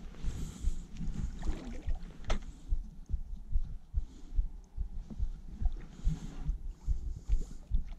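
Irregular low thumps and rumble from buffeting on a body-worn camera's microphone while a baitcasting reel is cranked in, with a few faint sharp clicks.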